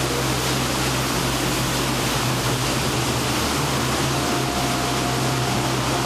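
Waterfall about 35 metres high pouring steadily: an even, unbroken rush of falling water, with a low steady hum underneath.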